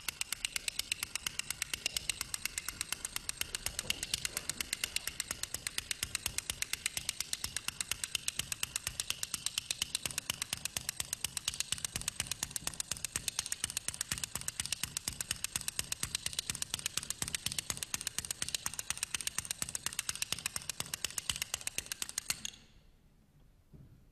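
Dry percussion clicking a steady, even beat, roughly three clicks a second, that cuts off suddenly near the end.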